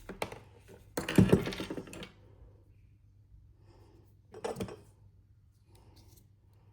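Hard parts of an opened angle grinder being handled, clicking and clattering: a loud burst of rattling about a second in that lasts about a second, and a shorter one a few seconds later.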